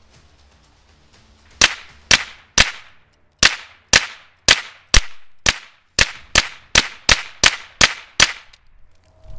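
Grand Power Stribog SP9A3G 9mm carbine firing a string of about fifteen semi-automatic shots, roughly two a second and quickening toward the end. It cycles without a stoppage from a Magpul PMAG 27-round Glock-pattern magazine.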